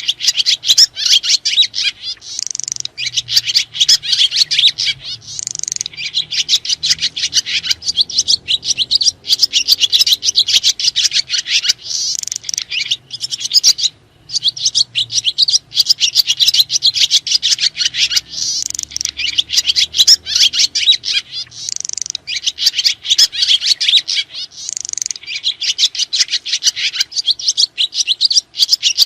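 Swiftlets (sriti) twittering: a dense, unbroken stream of rapid, high chirps, with one brief break about 14 seconds in.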